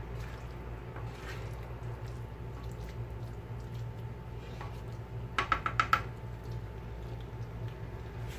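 Cooking utensils stirring and scraping chopped mutton liver in a frying pan over a steady low hum, with a quick run of about six sharp taps of the utensil against the pan a little past halfway.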